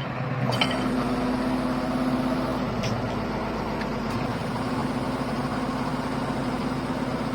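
Excavator's diesel engine running steadily, with a few faint clicks over it.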